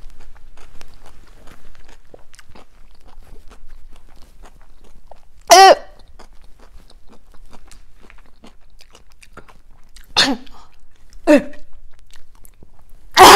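A person chewing a mouthful of crunchy dill pickle, many small faint crunches, broken by a few short pained groans of disgust: one about five seconds in and two near the end.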